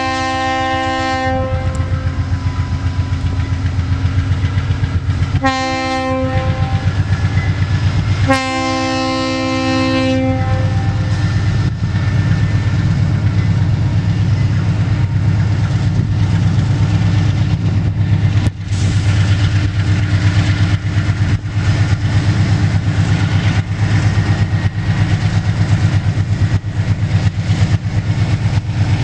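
Diesel freight locomotive sounding its multi-chime air horn for a grade crossing: a long blast ending about a second and a half in, a short blast about five seconds in, and a longer blast about eight seconds in, the close of the long-long-short-long crossing signal. After the horn the locomotive's diesel engine runs steadily and the wheels click over the rail joints as the train rolls through.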